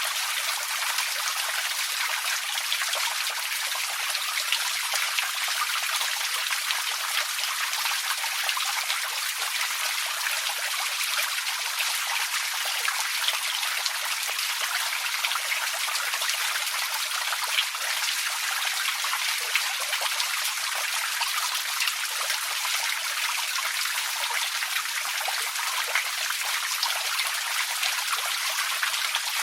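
Small forest creek running: a steady, even rush of water, mostly hiss-like and high, with fine splashy detail.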